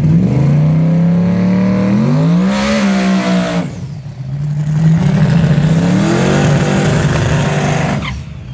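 Drag car engines revving hard during burnouts, the pitch climbing and held high with the hiss of spinning rear tires. The sound drops away about four seconds in, climbs again, and cuts off near the end.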